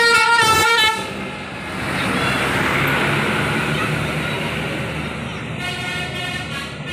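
Bus horn blaring with a steady multi-tone blast that cuts off about a second in, followed by a departing coach's engine and tyres going by. A second, lower bus horn starts sounding near the end.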